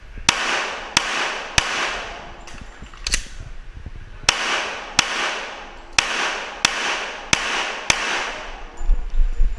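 About ten pistol shots from a Glock 41 in .45 ACP, fired in quick pairs and strings with a short pause after the fourth shot. Each shot rings on in a long echo off the concrete walls of the indoor range.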